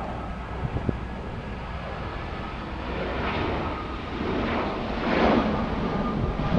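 Jet airliner flying low overhead: a broad rushing engine noise that swells louder over the last few seconds as it passes.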